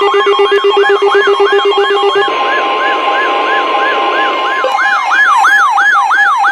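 Electronic siren sounding in a fast repeating rising-and-falling yelp, about three sweeps a second, over steady alert tones. A single steady tone joins for a couple of seconds in the middle, and about five seconds in the sweeps grow louder and several overlap.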